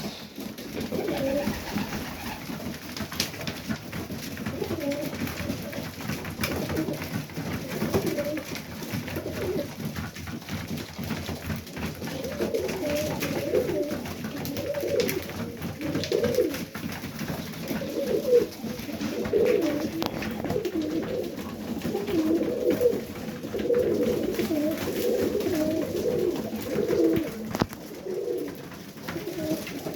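Serbian Highflyer pigeons cooing, several birds in overlapping, wavering calls, with the cooing getting thicker and louder from about halfway through.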